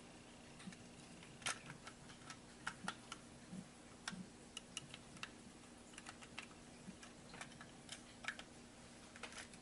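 Faint, irregular small clicks and taps of a computer mouse's plastic parts being handled while its internal wires are fitted back into place.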